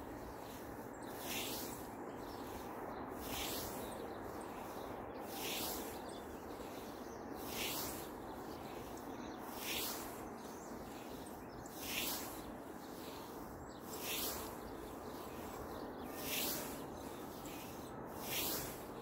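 Scythe blade swishing through grass in a steady mowing rhythm, about one stroke every two seconds, nine strokes in all, over a steady background noise.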